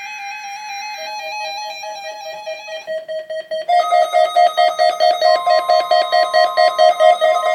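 Electronic weather-radio alert tones of a required weekly test: a rapidly pulsing electronic tone, about four pulses a second, that steps down in pitch. It gets louder about four seconds in, and a steady higher tone joins it.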